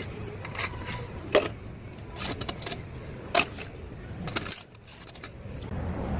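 Metal parts and hand tools clinking and tapping, with a few sharp ringing clinks, the loudest about a second and a half in and again about three and a half seconds in, over a steady low hum.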